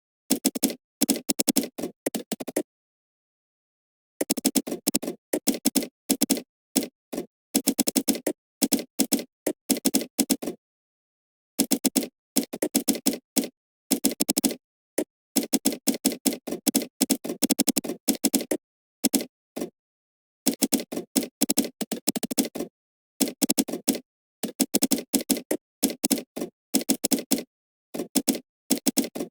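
Computer keyboard typing: rapid runs of key clicks in bursts of a second or two, broken by short pauses.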